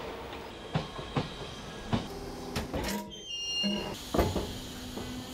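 Slow-moving coupled railway cars clanking: irregular sharp knocks, about a second apart, from wheels over rail joints and points and from the coupled cars, over a low rumble.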